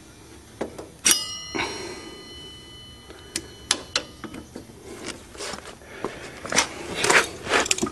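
Metal tools and parts on a Suzuki Z400 ATV's front brake caliper as its holding bolts come out and the caliper is pulled off. A sharp metallic clink about a second in rings on briefly. It is followed by scattered clicks, scrapes and rattles of metal on metal.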